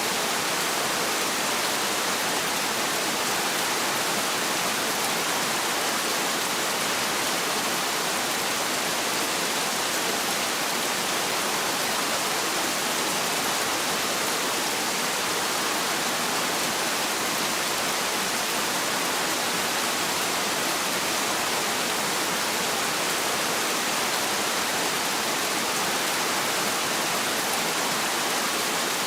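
Heavy rain falling as a steady, even hiss, with no thunder.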